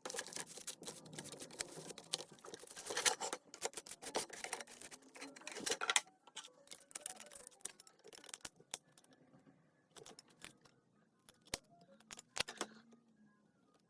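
Irregular clicks, taps and scraping from small plastic RC car parts being handled and worked on, dense for the first half and then sparse and quieter.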